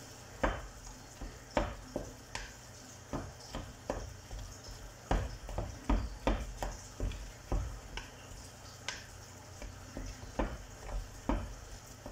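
Spoon stirring a thick mixture of milk-soaked bread in a plastic mixing bowl, with irregular knocks and scrapes against the bowl, roughly two a second.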